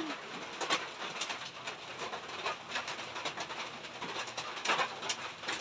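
Rain falling on the roof: a steady hiss with many small ticks of drops.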